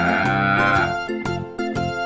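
Background music: an upbeat instrumental tune with a steady bass line and notes changing about every half second.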